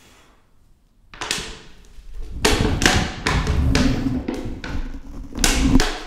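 Thin plastic bottle crackling and knocking as it is handled: irregular loud crinkles start about a second in and come several times a second.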